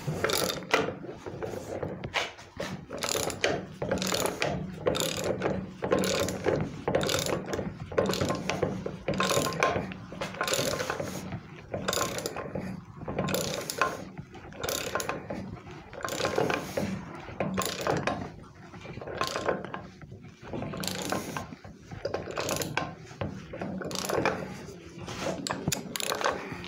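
Ratchet clicking in a long run of repeated strokes as the Mastercool 71550 manual A/C hose crimper is cranked down, crimping a ferrule onto the A/C hose.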